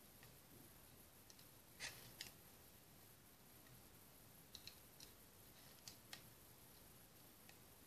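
A handful of light, sharp clicks, some in quick pairs, from a knitting hook and yarn working against the plastic pegs of a round knitting loom as each stitch is knitted plain.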